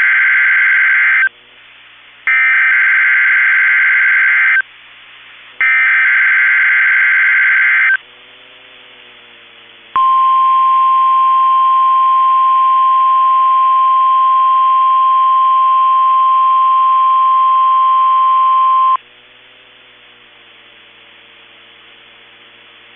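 NOAA Weather Radio Emergency Alert System signal: the end of one burst of SAME digital header data and then two more, each a couple of seconds long with about a second's gap between. After a short pause comes the 1050 Hz weather radio warning alarm, one steady high tone held for about nine seconds that cuts off abruptly.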